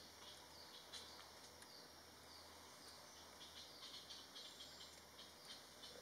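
Faint forest ambience: many short, high, falling chirps repeating irregularly, over a faint low hum.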